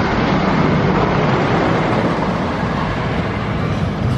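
Roller coaster train running along its track: a loud, steady noise heavy in the low end, with no distinct clicks or knocks.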